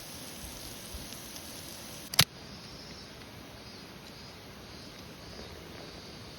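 Steady rushing of a clear mountain stream, with one sharp click about two seconds in.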